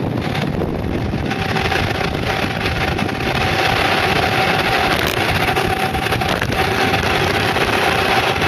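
Mountainboard rolling fast down an asphalt road: a dense, steady rushing from its knobby pneumatic tyres on the pavement, with wind on the microphone and a faint steady hum running through it.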